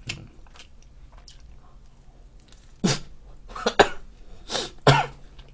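A man coughing: four or five short, sharp coughs in the second half.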